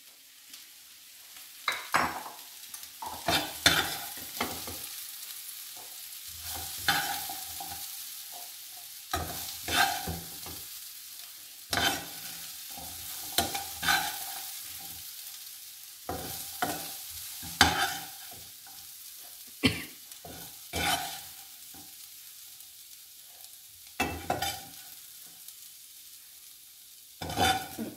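A metal spatula scraping and knocking in a non-stick frying pan, in irregular strokes, as a stir fry of jackfruit seeds is scooped out into a glass bowl. A faint steady sizzle from the hot pan runs underneath.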